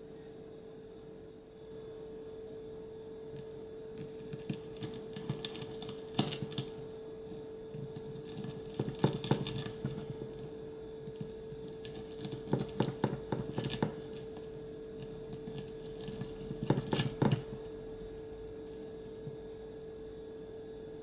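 Miniature knife slicing through the crisp fried breadcrumb crust of a tiny tonkatsu pork cutlet on a wooden board: crunching in four short bouts a few seconds apart, over a steady low hum.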